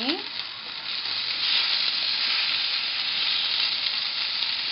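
Breaded chicken schnitzels sizzling in sunflower oil in a non-stick frying pan: a steady hiss that dips briefly just after the start and grows louder again about a second and a half in.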